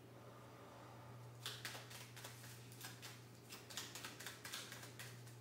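Faint, irregular clicks and rustles of a small object being handled and fiddled with in the hands, starting about a second and a half in, over a steady low hum.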